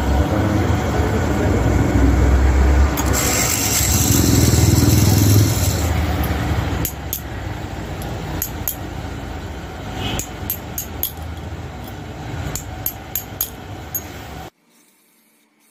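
A workshop machine motor runs with a steady hum for the first several seconds, with a harsh high hiss for a few seconds in the middle. Then steel CV joint parts clink and tap against each other a dozen or so times, and the sound cuts off abruptly near the end.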